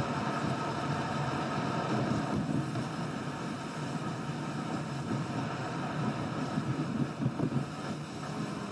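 Driving noise heard from inside a car's cabin: a steady road and tyre rumble with the engine running under it.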